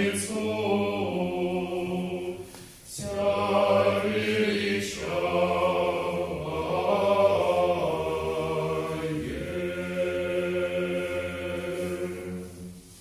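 A small group of male voices singing Orthodox church chant a cappella, in long held low chords. There is a short break for breath about three seconds in, and the singing ends just before the close.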